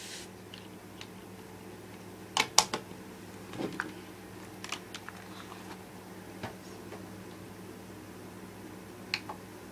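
A few scattered light clicks and taps of handling small gear, the loudest two close together about two and a half seconds in, over a faint steady low hum.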